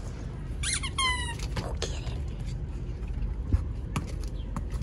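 A dog's squeaky toy squeaks twice in quick succession about a second in, the second squeak a clear, slightly falling tone. Light ticks and one sharp knock follow.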